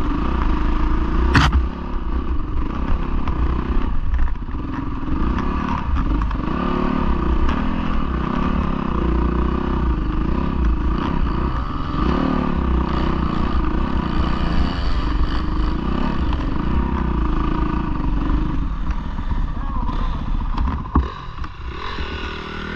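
Dirt bike engine running under changing throttle while riding up a rutted snowy trail, its revs rising and falling over and over, with wind rumble on the microphone. A sharp knock about a second and a half in and a thump near the end, after which the engine drops to a quieter, lower running as the bike pulls up.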